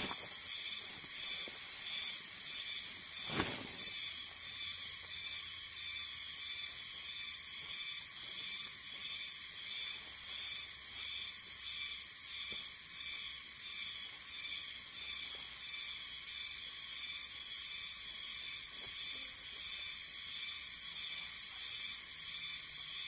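Steady high-pitched hiss with a fast, faint pulsing to it, and a single short knock about three and a half seconds in.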